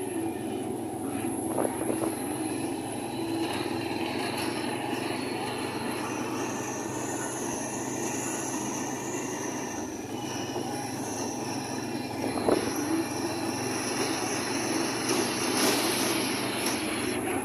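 Steady engine, road and wind noise of riding through street traffic, with motorcycles and motorcycle-sidecar tricycles running close by. A few brief louder bursts come a couple of seconds in, near the middle and near the end.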